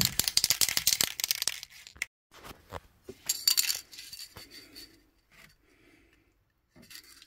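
Aerosol can of fish-oil rust treatment being shaken, its mixing ball rattling rapidly for about the first second and a half and again briefly a little after three seconds in, followed by a few light clinks and knocks.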